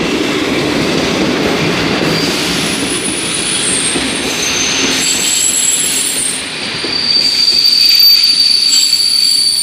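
ČD class 842 diesel railcar and its passenger coaches rolling past close by: a rumble of wheels on the rails, with high wheel squeal in several steady tones coming in a few seconds in and loudest near the end.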